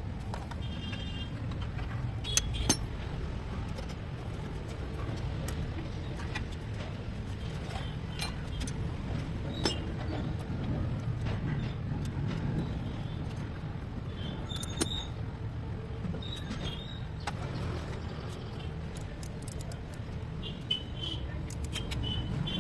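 Scattered metallic clicks, clinks and brief ringing taps of hand tools and parts being handled on a diesel engine's injector area, over a steady low background rumble.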